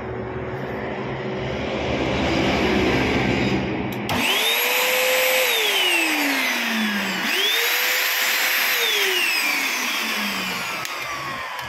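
Hitachi vacuum cleaner motor running with a loud whir, then twice spinning up to a high whine and winding down with a slowly falling pitch as it is switched on and off. The motor runs now that the detached supply wire has been reconnected, so the fault is cured.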